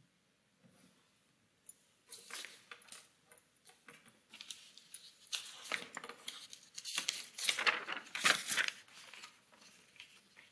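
Irregular rustling and scraping noises in uneven bursts, beginning about two seconds in.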